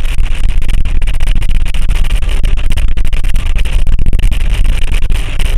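Heavy rain pouring down, dense drops crackling close to the microphone over a steady low rumble.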